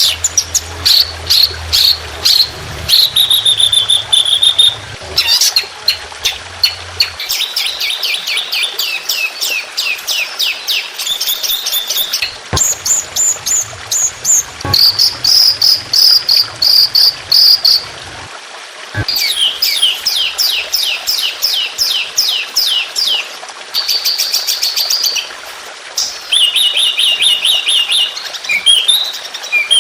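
Songbird singing a varied, high-pitched song. Runs of fast repeated notes and rattling trills, the rapid-fire 'tembakan' phrases, alternate with short steady whistled notes, changing every few seconds.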